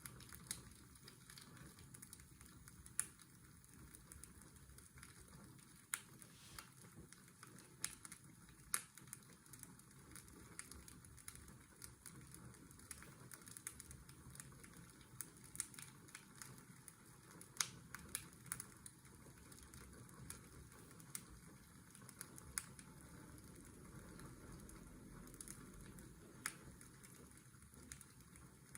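Faint fireplace crackling, with irregular sharp pops scattered throughout, over a steady hiss of washing-machine white noise.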